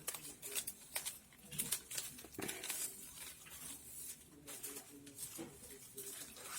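Palm strips rustling and crinkling in the hands as they are worked and fitted together, with many irregular small crackles and clicks.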